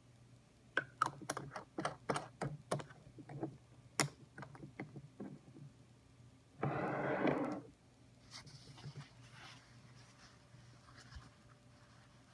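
Handling sounds from filling a TWSBI Eco fountain pen from a glass ink bottle: a run of small sharp clicks and taps over the first five seconds, then a noisy rush of about a second some seven seconds in. Faint rubbing follows as a paper towel wipes the pen.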